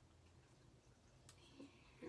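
Near silence: room tone, with one faint click a little over a second in.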